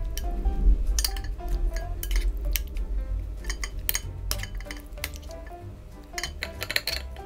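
Metal spoon clinking and scraping against a glass jar, many irregular clicks, as sliced cucumbers in juice are packed down into it. Background music plays underneath.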